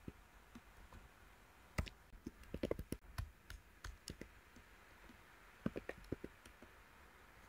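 Faint keystrokes on a computer keyboard: scattered clicks in a few short clusters as a command is typed.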